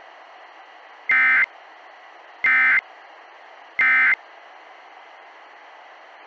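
Three short bursts of the EAS/SAME digital data tone, the harsh warbling end-of-message code from NOAA Weather Radio that marks the close of the alert broadcast. The bursts come about a second apart over a steady hiss of radio static.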